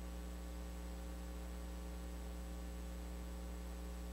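Steady electrical mains hum, a low unchanging buzz with a faint hiss over it.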